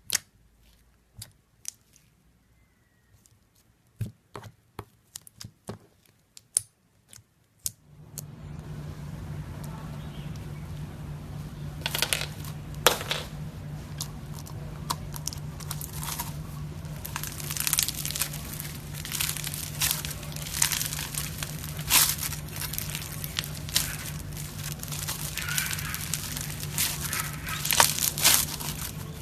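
Green slime being squeezed and stretched by hand, giving sticky crackles, pops and tearing sounds, sparse at first and then dense and continuous. A steady low hum comes in about eight seconds in.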